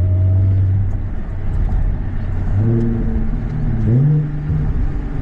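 Audi B8 S4's supercharged 3.0-litre V6 running under way, its note steady for about two seconds, then climbing twice in quick steps as it pulls.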